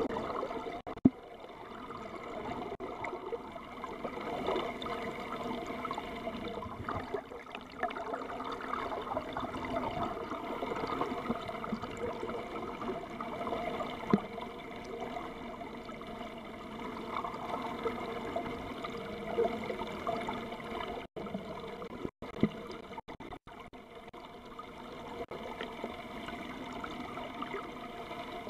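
Water rushing and bubbling over an underwater camera beside a boat's hull, with a steady hum beneath it. Two sharp knocks stand out, and the sound cuts out briefly several times about three-quarters of the way through.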